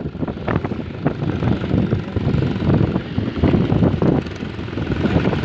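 Rumble of a moving motor vehicle on the road, with wind buffeting the microphone as it travels.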